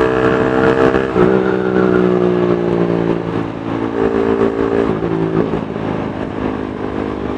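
Honda CB150R's 150 cc single-cylinder engine running through a 3Tech Spartan GP aftermarket racing exhaust in its street mode, under way. The exhaust note drops in pitch about a second in, then sinks gradually and shifts again around four and five seconds in.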